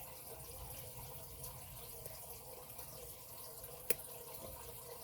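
Lock picks and a tension wrench working the pins of a dual-sided padlock, quiet against a steady low hiss, with one sharp click about four seconds in.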